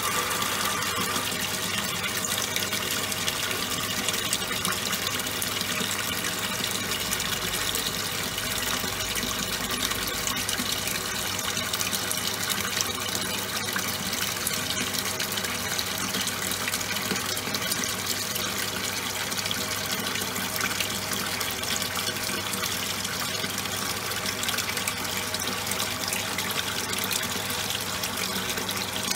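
Top-loading washing machine running with towels inside: a steady water noise over a low, even hum that holds unchanged throughout.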